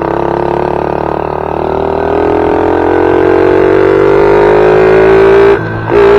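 ATV engine running and revving, its pitch climbing steadily as the throttle opens. About five and a half seconds in the throttle is let off, then blipped again just before the end.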